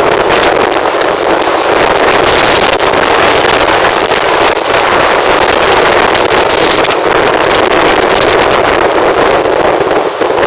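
Strong wind blowing hard across the microphone, a loud, steady rush with no let-up.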